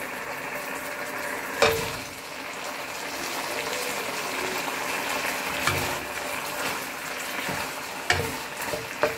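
Ginger-garlic soy sauce sizzling and bubbling in a nonstick wok, with a loud clatter about a second and a half in as fried fish pieces go in, then a few knocks of a spatula turning them in the sauce later on.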